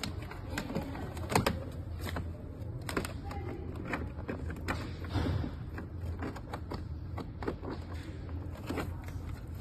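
Irregular light clicks and taps of small hand tools and parts being handled during a charging-port and battery repair, over a steady low hum.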